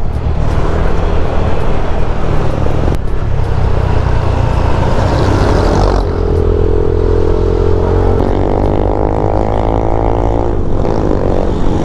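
Motorcycle riding at speed, with wind rushing over the microphone under the engine. About halfway in the engine's note comes through steady, then climbs gradually as the bike speeds up, fading near the end.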